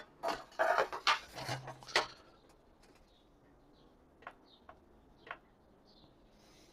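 Rustling and knocking as the automatic coop door unit and its solar panel cable are handled on a table, then a few soft clicks as buttons on the door's control panel are pressed. Faint high chirps are heard between the clicks.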